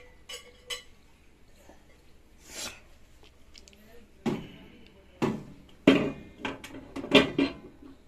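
Glass microwave turntable plate clinking and knocking against the metal oven cavity as it is handled and set down on its roller ring: two light ringing clinks, then a quick run of sharper knocks in the second half.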